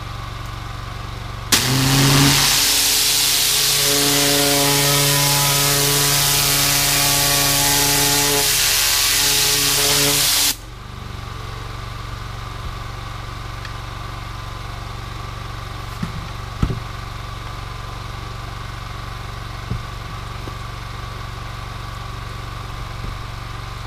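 A 4,000 PSI engine-driven pressure washer runs steadily. About a second and a half in, the zero-tip spray jet blasts on with a loud hiss for about nine seconds, then cuts off suddenly, leaving the engine running on its own.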